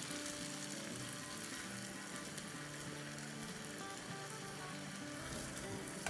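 Potatoes and spice masala sizzling steadily in oil in a frying pan as yogurt goes in, with faint background music of held notes underneath.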